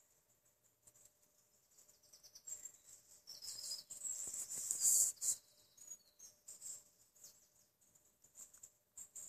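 Badger chewing apples: scattered sharp, high-pitched clicks and smacks, with a louder stretch of crunching and rustling about three to five seconds in.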